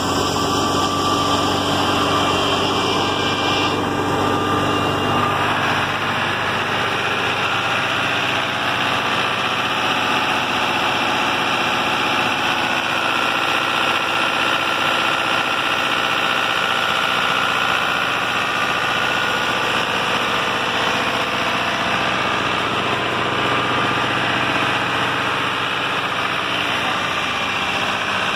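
New Holland Fiat 640 tractor's diesel engine running steadily, driving a wheat thresher through its PTO shaft, with the thresher's machinery running along with it.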